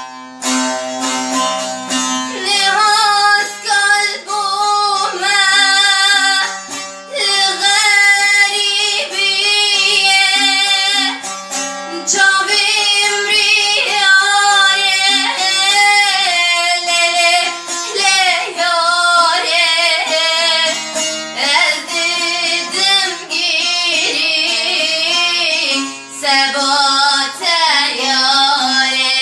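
A woman singing a Kurdish song in long, ornamented phrases with a wavering vibrato, over plucked-string accompaniment. The instrument plays alone at first, and the voice comes in about two seconds in.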